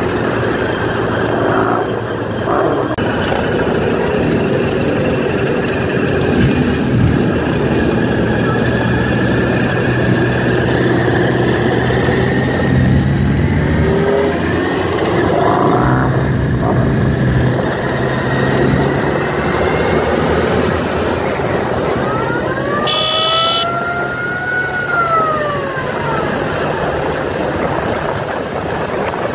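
Motorcycle engines running at road speed, heard from a moving motorcycle, with a steady low hum. The engine note shifts in pitch a few times around the middle. About three-quarters of the way through, a short tone rises and then falls.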